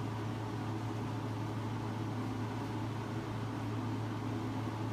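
Room tone: a steady low hum over a faint hiss, unchanging.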